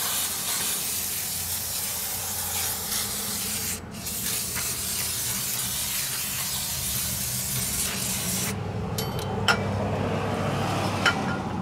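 Aerosol spray can hissing in a long spray, with a brief break about four seconds in. It then sprays again and cuts off about eight and a half seconds in, followed by a couple of light clicks.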